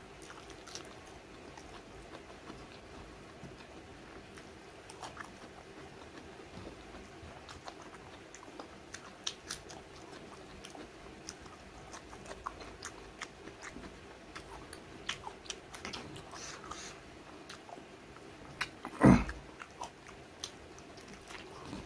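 Close-miked chewing and eating by hand: many small wet mouth clicks as a man chews mouthfuls of rice and curry. A single loud thump comes about nineteen seconds in.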